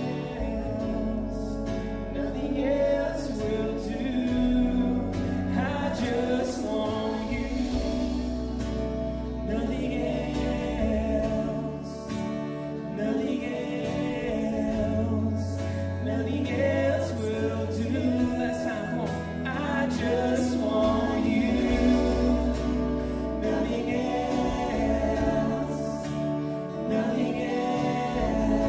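Live contemporary worship band playing: a male lead singer over strummed acoustic guitar, with sustained bass notes and keyboard underneath.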